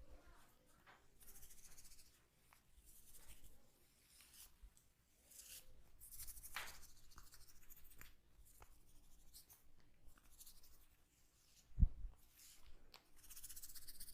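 Fingers rubbing and scratching through hair and over the scalp during a head massage, in quiet, uneven passes of about a second each with small clicks between them. A single low thump comes near the end.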